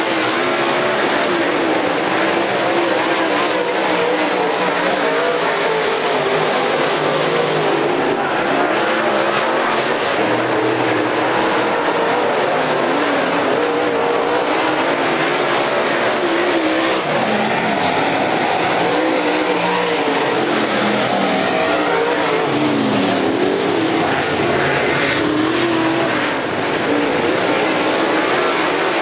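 Dirt late model race cars' V8 engines running laps on a dirt oval, several cars at once, the engine note rising and falling as they go into and out of the turns and pass by.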